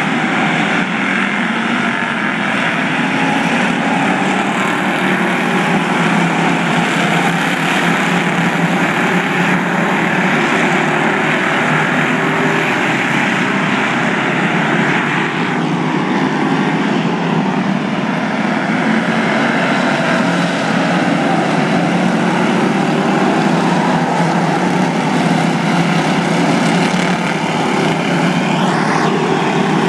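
Several V8 enduro race cars running hard around an oval track, a loud steady mass of engine noise, with a single car's engine note sweeping in pitch as it passes about halfway through and again near the end.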